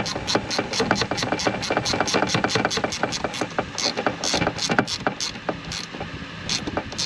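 Hand ratchet clicking quickly, about five clicks a second, as it runs in the shifter's mounting screws; the clicks come more slowly and unevenly in the second half.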